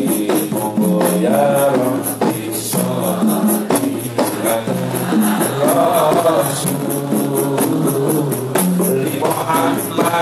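Sholawat, devotional Islamic group singing, accompanied by frame drums and jingles keeping a fast, steady beat.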